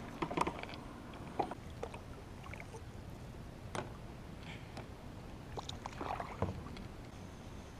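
Kayak paddling: a paddle dipping and splashing in still water, with scattered light knocks and scrapes against the kayak. The strongest cluster comes a little after the six-second mark.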